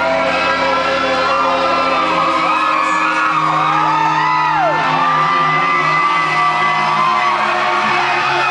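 Live band playing loudly in a hall, with audience members whooping and shouting over the music.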